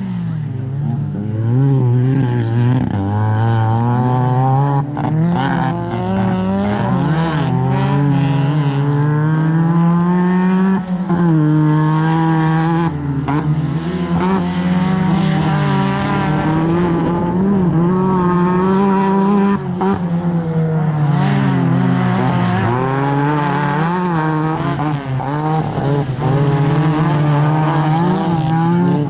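Autocross Lada saloon's four-cylinder engine run hard, its pitch climbing and dropping again and again as it is shifted through the gears and lifted for the corners.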